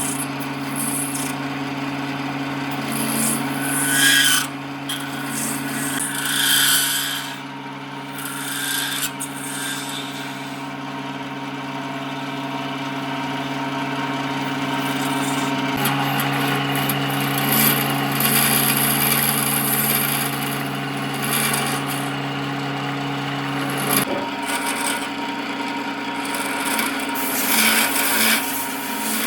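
Electric power tool working wood. Its motor hums steadily and shifts in pitch twice, with rasping, scraping surges as it bites into the wood.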